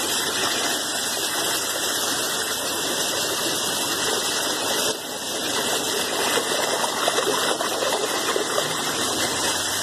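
Muddy floodwater rushing and churning as it drains away, a steady rush with a brief dip about five seconds in.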